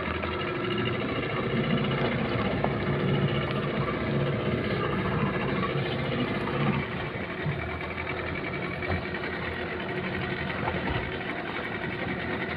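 A fishing boat's engine running steadily at idle, with a fast, even mechanical rattle.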